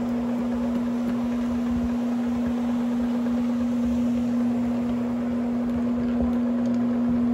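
Electric motor of a carpet cleaning machine running with a steady, unchanging hum.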